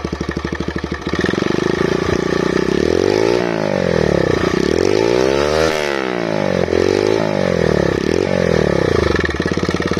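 TVS Raider 125 motorcycle's single-cylinder engine, fitted with a custom-cut Akrapovic exhaust welded onto the stock bend pipe with the catalytic converter kept, idling and then revved several times, the pitch rising and falling with each blip before settling back to idle near the end.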